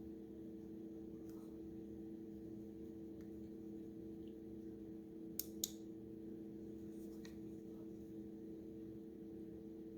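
A faint steady hum of a few low tones, with two sharp clicks close together about halfway through and a few fainter clicks.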